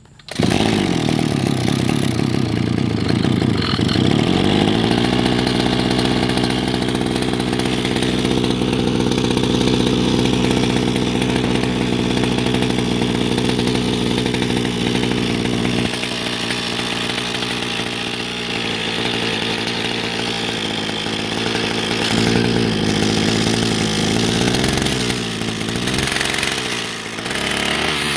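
Brush cutter's small petrol engine catching and running, its revs climbing within the first few seconds and holding high, dropping back about two-thirds of the way through, then revving up again and dipping briefly near the end.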